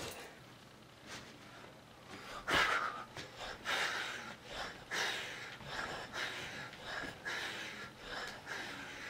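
A man breathing hard from exertion during push-ups: one loud gasp about two and a half seconds in, then quick, sharp breaths about two a second.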